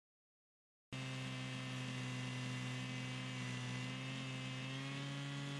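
A steady machine hum, a low tone with a ladder of overtones whose pitch creeps up slightly, starting abruptly about a second in.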